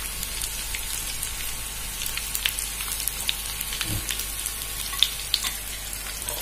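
Boiled potatoes and chopped hot green pepper frying in hot oil and lamb tail fat in a frying pan: a steady sizzle with scattered crackling pops.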